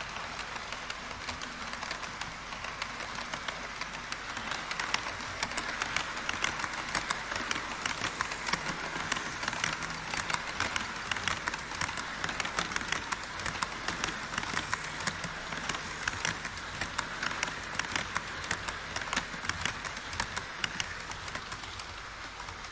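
HO-scale model trains rolling over KATO Unitrack across a model truss bridge: a steady rattle with many quick clicks of the wheels on the track. A container freight train passes first, then an E5-series Shinkansen model.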